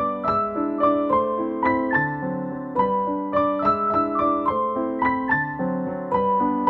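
Background piano music: a gentle melody of struck notes over lower sustained chords.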